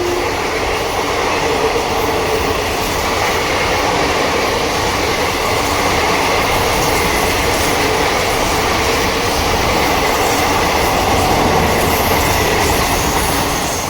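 An Indian Railways express passenger train running past at speed: a loud, steady rolling and rattling of coach wheels on the rails with a faint high squeal, beginning to fade near the end.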